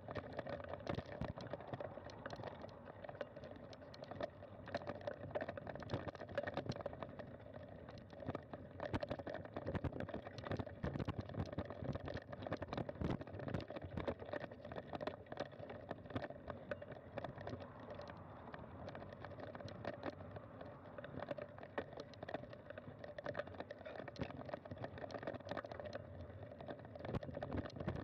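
Bicycle rolling over a rough dirt trail, with a constant dense rattle and clatter of many small knocks and a steady tyre rumble underneath.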